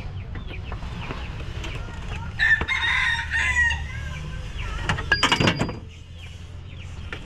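A rooster crowing once, starting about two and a half seconds in, among chickens clucking, then a short cluster of sharp clacks just after five seconds, over a steady low hum.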